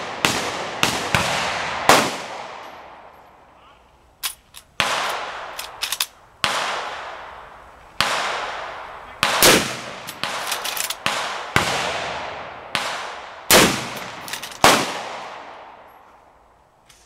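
A .357 Magnum gun firing a string of shots, each a sharp crack followed by a long echo dying away. Small clicks and knocks fall between some of the shots.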